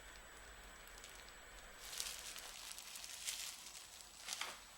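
Faint rustling and crinkling of packaging being handled, in a few short spells about two seconds in and again near the end.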